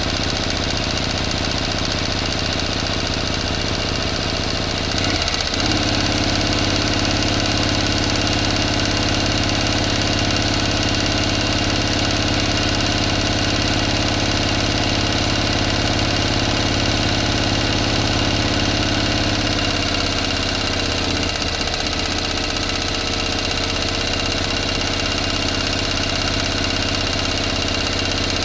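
A motor running steadily with a continuous hum. Its note changes about five seconds in and changes again around twenty seconds in.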